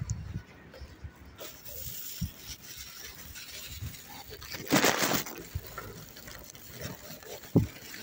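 Handling noise from a phone being carried and moved: scattered low thumps and rubbing, with a brief rush of noise about five seconds in.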